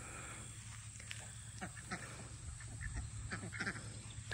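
Domestic ducks quacking in short, scattered calls.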